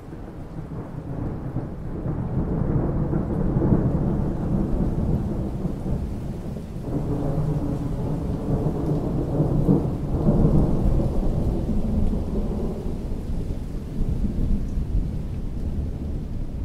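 Thunder rolling in a long low rumble that swells twice, over steady rain falling on water.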